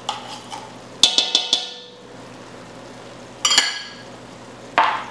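Metal butter knife tapping and clinking on metal while tomato paste is scraped and knocked off it: a quick run of five or six sharp ringing taps about a second in, then single clinks at about three and a half and nearly five seconds.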